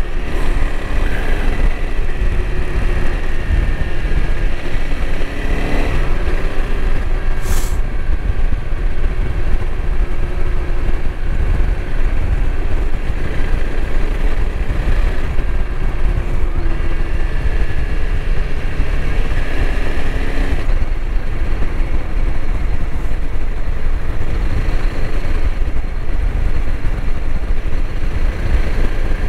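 Honda CRF300L Rally's single-cylinder engine running at a steady cruise, with heavy wind buffeting on the microphone and tyres on wet pavement. A brief high hiss about seven and a half seconds in.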